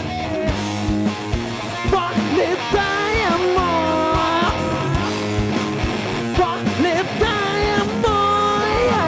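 Heavy-funk rock band playing live: an electric guitar plays a lead line of bending, sliding notes over a steady drum beat.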